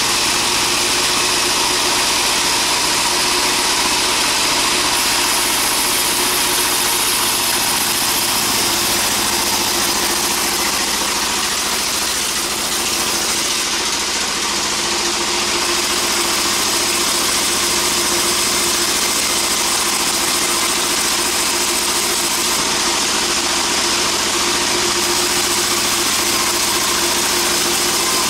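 Sawmill band saw machinery running steadily: a loud, constant engine-like drone with a few held tones and no breaks.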